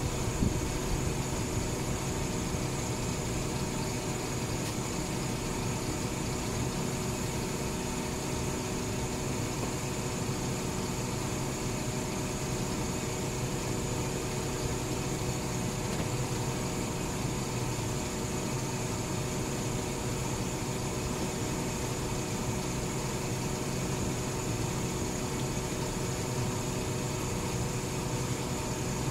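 Garbage truck idling with a steady, unchanging hum, with a few brief knocks about half a second to a second in.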